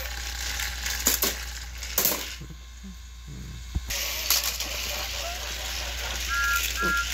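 Motorised plastic Thomas & Friends toy engines running and shoving against each other on plastic track: continuous whirring and rattling clatter from their gears and wheels, with several sharp clicks and knocks. Two short high beeps come near the end.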